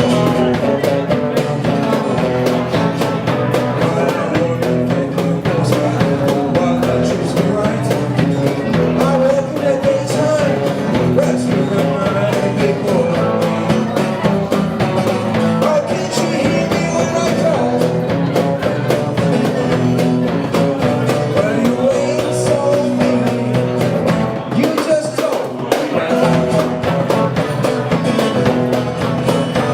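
A rock band playing a rock-and-roll number with guitar and singing, loud and steady throughout, with a regular beat.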